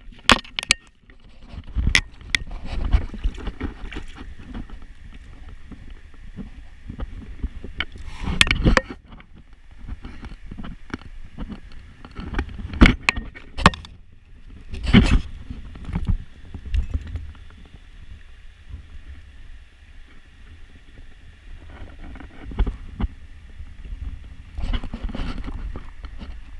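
Shallow river water splashing and running around an angler's hands and a landing net. Irregular sharp knocks and rubbing come from handling close against the camera.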